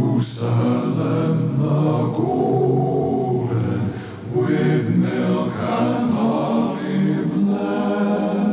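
A small church congregation singing a hymn together in long held notes.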